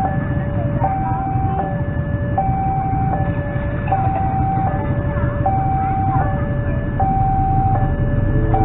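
Railway level-crossing warning alarm sounding two alternating electronic tones, a held higher note then a lower one, about one cycle every one and a half seconds, signalling an approaching train, over a steady low rumble. Near the end a train horn starts up, holding a lower two-note chord.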